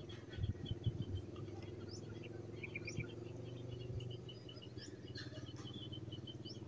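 Small birds chirping repeatedly over a steady low hum, with a few low thumps about half a second to a second in.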